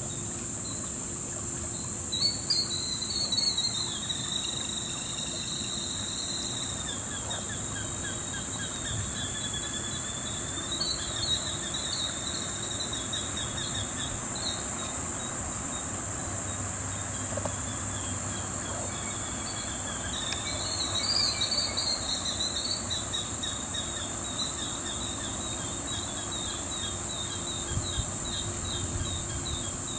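Killdeer giving long, rapid trills of repeated notes that start a little higher and fall slightly in pitch, in three bouts, over a steady high drone of insects.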